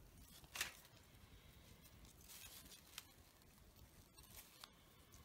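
Near silence, with faint rustling and a few soft ticks from fabric rose petals and thread being handled by fingers.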